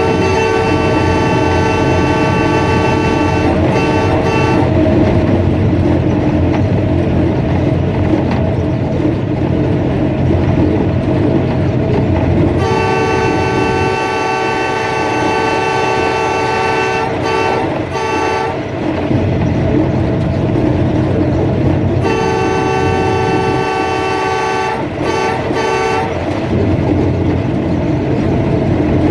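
Diesel locomotive's multi-tone air horn sounding in three long blasts, each ending in a few short toots, over a steady low rumble of engine and wheels as the express train runs through the station without stopping.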